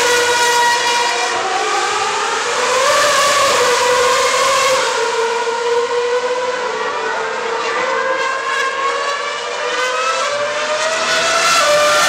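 Formula 1 cars' 2.4-litre V8 engines screaming at high revs on the circuit, several heard at once, their pitch sliding down and up as they brake, change gear and pass. Louder again near the end as a car comes by.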